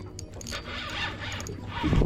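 Fishing reel being wound in on a hooked fish: a soft scratchy whir that swells and fades in rough turns, over a steady low rumble.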